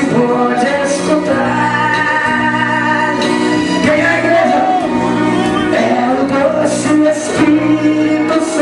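Live gospel worship music: a man singing into a microphone over steady instrumental accompaniment, with long held notes.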